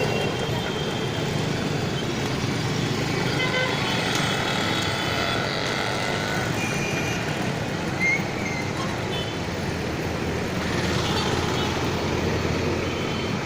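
Steady street traffic noise of passing vehicles, with short horn toots now and then.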